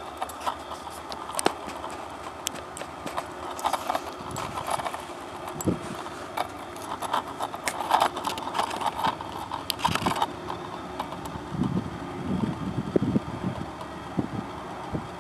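Distant freight train with diesel locomotives rolling past: irregular sharp clicks and crackle for about the first ten seconds, then they stop and an uneven low rumble takes over.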